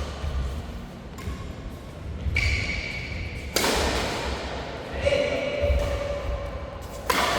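Badminton doubles rally sounds in a reverberant indoor hall: low thuds of footwork on the court and two sharp racket strikes, one about halfway through and one near the end.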